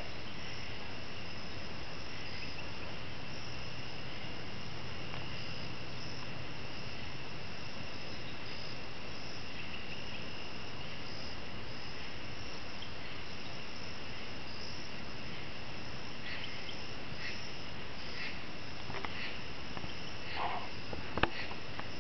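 Steady chorus of crickets and other insects, with a single faint knock right at the start, taken for wood striking a tree and not very hard hit. Near the end come a few short chirps and one sharp click, the loudest sound in the stretch.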